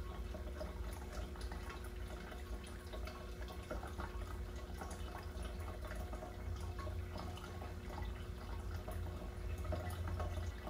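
Room tone: a steady low rumble with a faint steady hum and scattered faint ticks.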